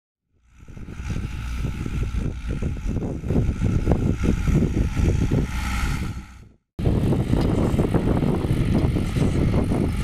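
John Deere 2850 tractor's diesel engine running under load as it pulls an offset disc harrow through a field, a steady uneven rumble. It fades in about a second in, breaks off for an instant about two-thirds of the way through, and comes back louder.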